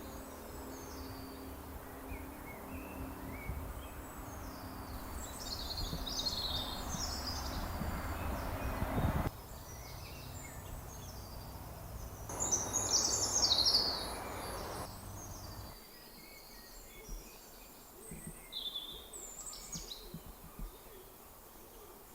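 Several songbirds singing and calling, short chirps and trills throughout, over a steady low rumble of background noise that drops away sharply about sixteen seconds in.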